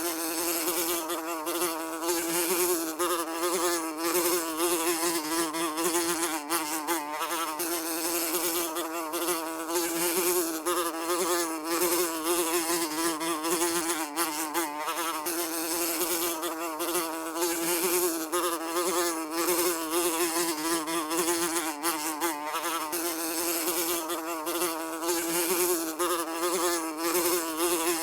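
Fly buzzing without a break, its wingbeat pitch wavering up and down as it moves.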